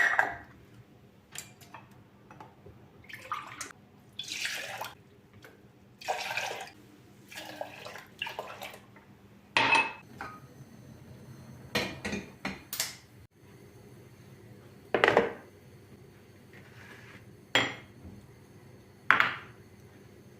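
Kitchen work: dishes and utensils knocking and clinking at irregular intervals, with short bursts of running water or rustling in between.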